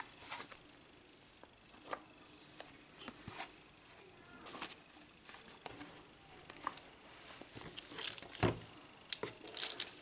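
Shrink-wrapped cardboard toy boxes handled by hand in an open cardboard carton: irregular rustling, crinkling and light knocks of packaging, with one heavier thud near the end.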